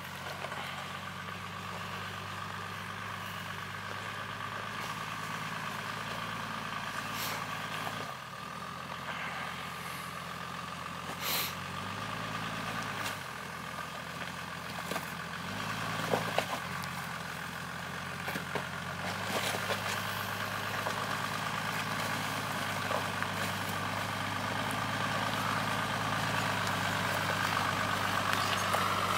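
Toyota Land Cruiser HDJ81's 1HD-T turbo diesel straight-six running at low revs as it crawls up a steep rocky climb. It grows slowly louder as it comes closer, with a steady high whine over the engine and a few sharp clicks and knocks along the way.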